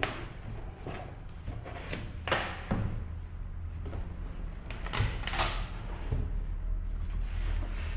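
Cardboard box flaps and packing being handled: rustling of plastic wrap and scraping of cardboard and polystyrene in several short bursts, the loudest about two and five seconds in, over a steady low hum.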